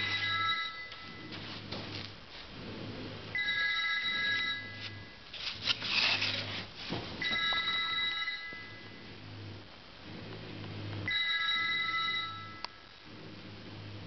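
A telephone ringing: four rings, each about a second and a half long, a few seconds apart. Between the second and third rings there is a short rustling noise.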